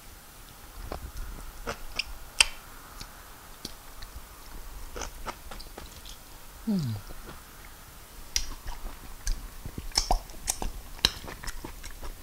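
Close-up chewing and wet lip-smacking of a person eating fufu and peanut soup by hand, many short sharp smacks and clicks, busier in the second half. About seven seconds in, a short hum falls in pitch.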